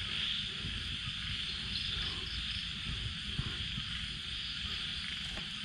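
Steady high chorus of crickets and other night insects, with low scraping and crackling from hands digging through loose soil.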